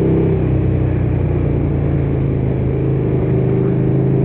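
Motorcycle engine running at a steady cruising pace while riding, its pitch holding level.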